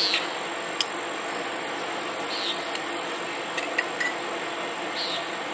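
Metal spoons clinking against a stainless steel bowl and a small glass jar as soft labneh cheese is scooped and pushed off into the jar: a few light, sharp clinks over a steady background hiss.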